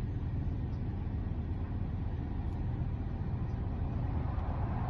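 Steady low rumble with no clear events, and only a few faint small ticks over it.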